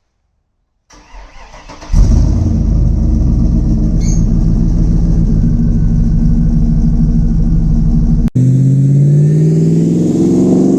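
Hummer H2's LS V8 turned over by the starter for about a second, then catching and settling into a steady idle. After an abrupt cut near the end the engine runs again, its pitch slowly rising as it revs up.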